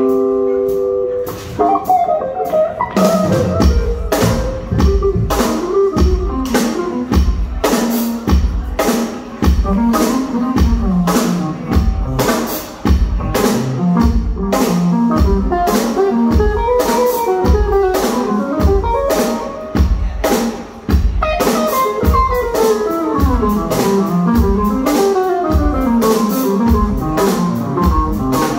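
Live band playing an instrumental: drum kit, electric guitar and keyboards. The drums come in with a steady beat about three seconds in.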